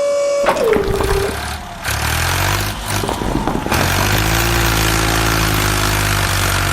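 A steady high tone that slides down in pitch and fades within the first second or so, then a truck engine idling steadily.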